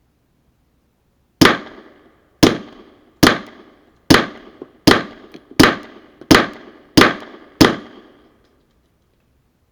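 Suppressed Glock 17 9 mm pistol fired nine times in steady succession, a shot a little under once a second. Each shot is a sharp report with a short ringing tail.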